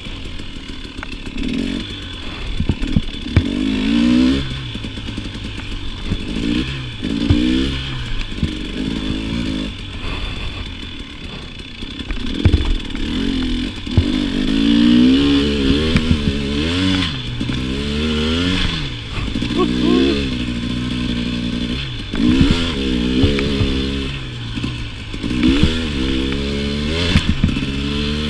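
KTM 300 two-stroke dirt bike engine revving up and falling back again and again as the throttle is worked, with occasional sharp knocks.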